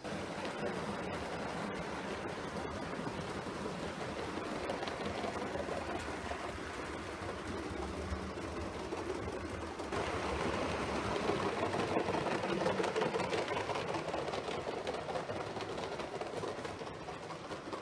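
7mm-scale (O gauge) model trains running on the layout: a steady whirr and clatter of small motors and wheels on the track, louder for a few seconds about ten seconds in.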